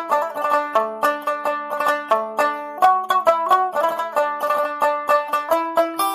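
Intro music: a quick, bright plucked-string tune of banjo or mandolin type, with rapid picked notes.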